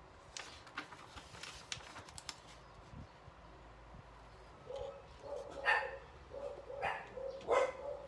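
Scissors snipping paper with a few small clicks, then about halfway through a dog starts whining in short repeated high notes, with three short barks near the end that are the loudest sounds.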